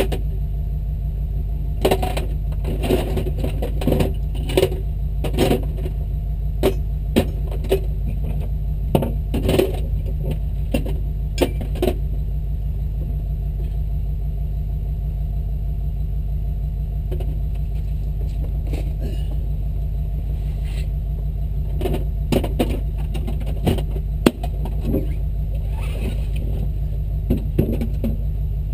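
Jeep engine running steadily with a low drone, with scattered sharp clicks and knocks over it, thickest in the first half and again near the end.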